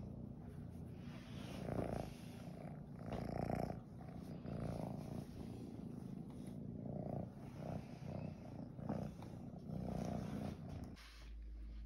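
Domestic tabby cat purring close to the microphone while being stroked, in uneven swells. The purr stops near the end.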